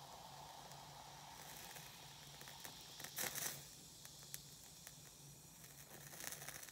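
Faint fizzing and crackling of baking soda reacting with white vinegar in a tilted plastic cup, the carbon dioxide bubbling off, with a few louder crackles a little past the middle.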